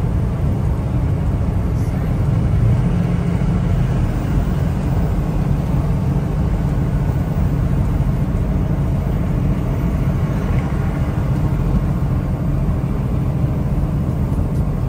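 Semi truck cruising at highway speed, heard from inside the cab: a steady low drone of the diesel engine mixed with tyre and road noise.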